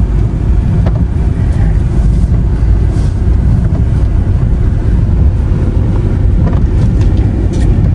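Steady low rumble of a car driving on a wet road, heard from inside the cabin, with a few faint clicks.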